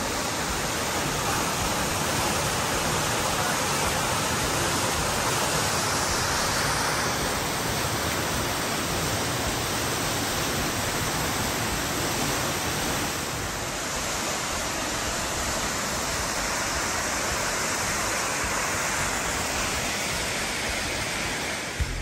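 Steady rush of a tall waterfall cascading down a rock cliff, heard close to the falling water.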